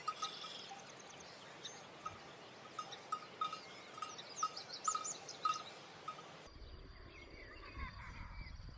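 Birds calling outdoors over a steady hiss: a short note repeated about once or twice a second, with quick high chirps among it. A little over two-thirds of the way through the sound changes abruptly to a low rumble with other bird calls.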